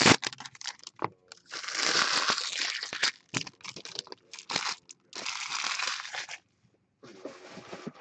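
Trading-card pack wrapper being torn open and crinkled by hand: several noisy crinkling bursts of a second or more, with scattered crackles between.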